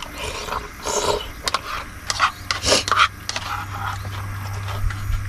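Someone eating ramen noodles: a run of irregular slurps and scrapes of utensils in the first few seconds, then a steady low hum from about halfway.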